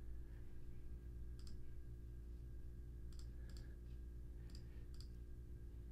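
A few soft computer clicks, some in quick pairs, from a mouse or keyboard while values are entered in a software settings panel, over a steady low hum.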